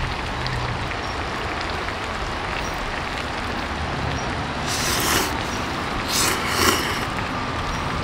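A person slurping ramen noodles twice, a short hissy suck about five seconds in and another about a second later, over a steady rushing hiss.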